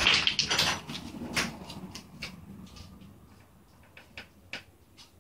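Handling noise: a burst of rustling and clatter in the first second, then scattered light clicks and knocks that grow fainter.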